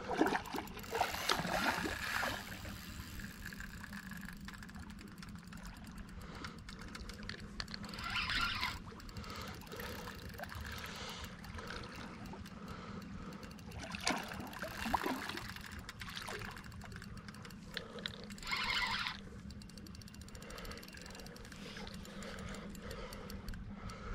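River water at the bank: a steady low wash broken by four short splashy rushes, about one, eight, fourteen and nineteen seconds in, while a hooked catfish is held at the water's edge.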